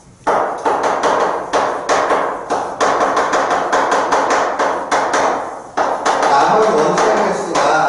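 Stick of chalk writing on a blackboard: a quick run of sharp taps and knocks, about three or four a second, as each stroke strikes and drags across the board.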